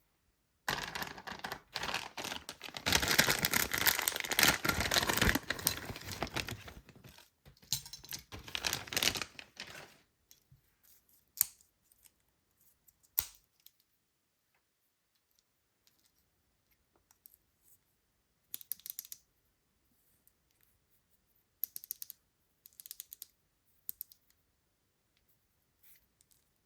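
Toy packaging being opened by hand: about nine seconds of dense crackling and tearing of wrapper, then scattered small clicks and rustles.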